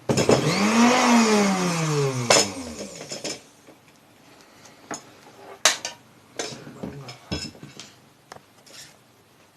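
Repaired sewing machine motor whirring up to speed for about a second, then winding down as it coasts to a stop; it now runs without the short. Scattered light clicks and clinks follow.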